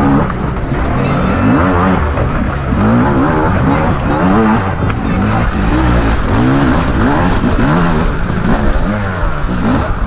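Beta enduro motorcycle engine revving up and down in quick, repeated throttle blips as the bike works its way up a rocky climb.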